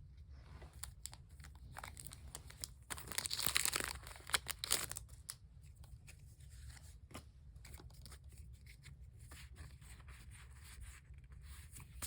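A Pokémon TCG booster pack wrapper being torn open, with one loud tear about three seconds in, then crinkling and light handling of the pack and cards.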